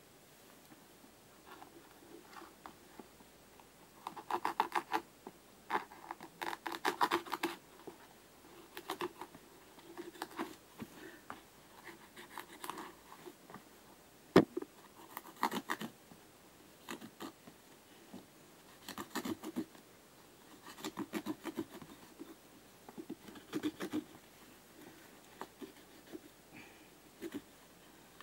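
Scissors cutting through the upper of an Adidas Predator football boot, in short runs of quick snips and scrapes with pauses between. One sharp click about fourteen seconds in.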